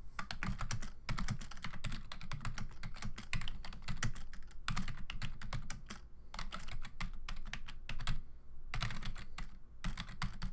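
Typing on a computer keyboard: rapid runs of keystrokes with brief pauses, the longest about eight seconds in.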